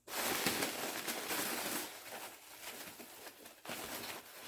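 Packing material rustling and crinkling as the smoke detector is dug out of the shipping box, louder for the first couple of seconds, then softer and more broken.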